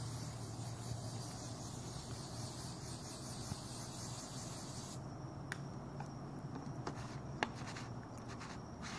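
Aerosol hairspray hissing steadily for about five seconds, then cutting off sharply, as it is sprayed into the potato gun's combustion chamber as fuel. A few light clicks and one sharper knock of handling follow.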